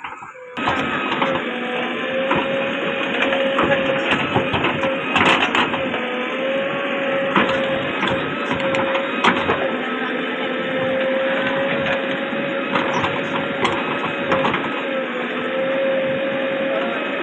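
JCB backhoe loader's engine running steadily under load, with a steady whine and scattered knocks and clanks from the digging. The sound starts suddenly about half a second in.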